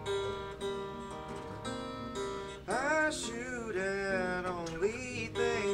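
Steel-string acoustic guitar playing a song, with a man's voice coming in singing about halfway through.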